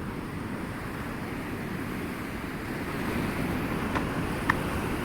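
Steady roar of a high-volume waterfall, a dense rushing wash of falling water. Two brief clicks sound near the end.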